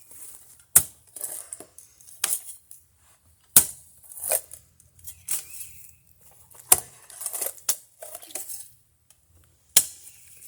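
Footer holes being dug by hand: a metal digging tool strikes into hard ground about six times, each strike a sharp clink followed by a brief scrape of loosened soil.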